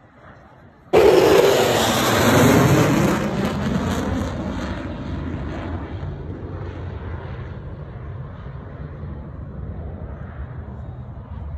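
F-16 fighter jet flying past: jet engine noise starts suddenly about a second in, loud, with a falling Doppler pitch sweep as it passes. It then fades slowly to a steady distant rumble.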